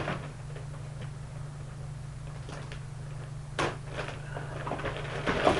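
Handling noises as hockey shin pads and their packaging are moved about: a few short knocks and rustles, the loudest near the end, over a steady low hum.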